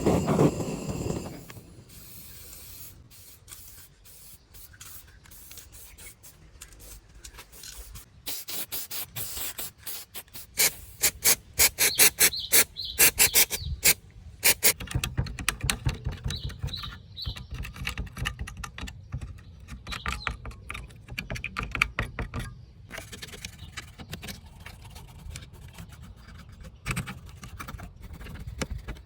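Runs of quick rubbing strokes, densest and loudest about ten to fourteen seconds in, with a low rumble underneath later on.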